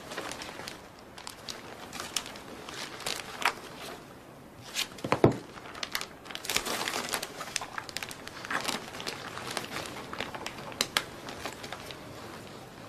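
Clear plastic bag crinkling and crackling as a handbag is handled inside it, with a dull knock about five seconds in.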